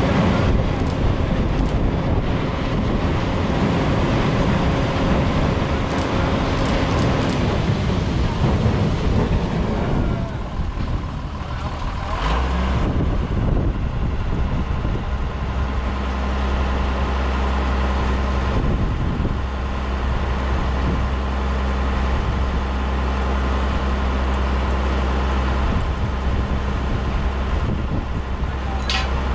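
Heavy diesel engines running, the busy engine noise easing off around seven to ten seconds in; from about twelve seconds in a diesel engine idles steadily with a low hum, and a brief squeal comes near the end.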